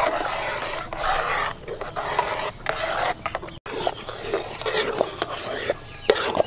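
Metal ladle scraping around the bottom and sides of a metal pot while stirring a thickening mung bean flour batter as it cooks, in repeated rasping strokes about one a second.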